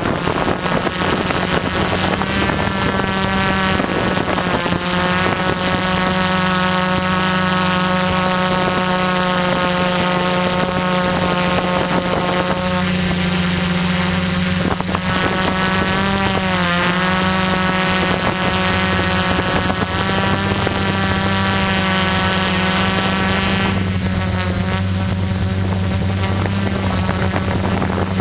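Quadcopter's electric motors and propellers buzzing steadily, with a higher whine above that shifts pitch up and down as the motors change speed, most noticeably about halfway through.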